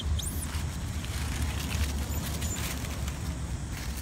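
Steady low rumble of outdoor background noise, with two short high chirps right at the start and faint rustling.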